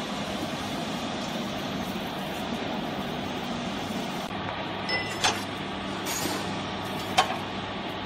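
Steady electric-motor hum of a small vertical hydraulic waste baler's power unit, with two sharp metal clanks a little past halfway and near the end as its steel chamber is handled.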